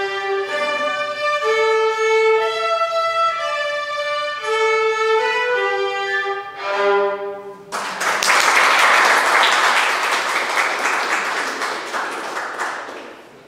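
Several violins playing a melody in unison, closing on a held note about seven seconds in. Applause then starts suddenly and fades toward the end.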